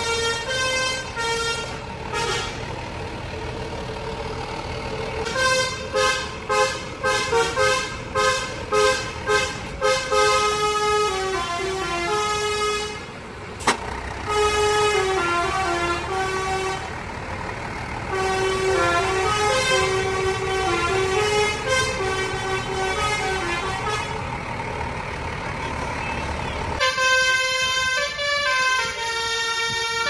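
Basuri 'telolet' multi-tone bus horn playing tunes: a quick run of about nine short honks, then longer melodies of stepping notes, over the bus's engine. Near the end a different horn melody takes over.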